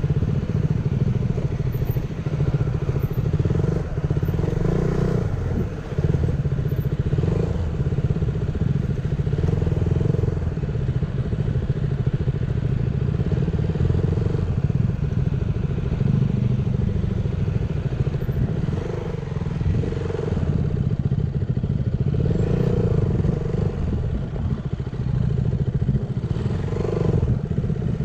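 Motorcycle's single-cylinder engine running at low speed on a rough dirt trail, the throttle opening and easing off every second or two.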